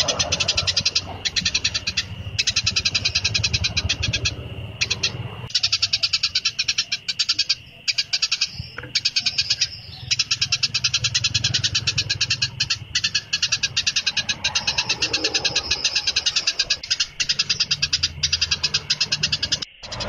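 A songbird's rapid, high-pitched chattering trill, repeated in long runs with brief breaks, over a steady high tone.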